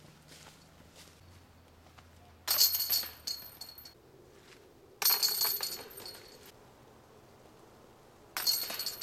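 Disc golf discs hitting the metal chains of a basket three times, each a sudden jangle of chains that rings on and fades over about a second.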